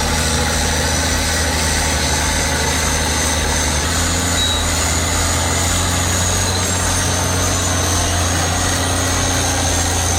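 Heavy diesel engine of a bulldozer running steadily, with a faint high whine over its low drone.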